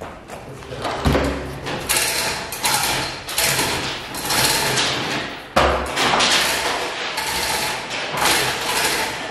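Hand work on a fibreglass boat hull being released from its mould: repeated short rasping strokes, with two heavy thumps, about a second in and about halfway through.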